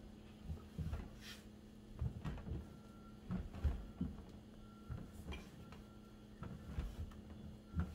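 Bread dough being kneaded by hand on a floured silicone baking mat: irregular soft thumps, one or two a second, as the dough is pushed and pressed against the mat and counter.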